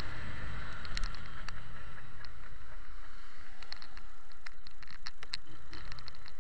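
Motorcycle riding noise from the Mondial Zone 150: wind rushing over the mic with a low road and engine rumble. Scattered small clicks become more frequent in the second half.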